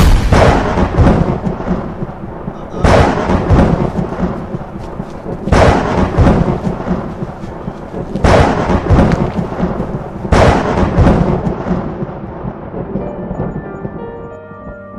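Thunder sound effect: five loud thunderclaps, one every two to three seconds, each crashing in suddenly and rumbling away. Near the end the thunder fades and soft music with held notes comes in.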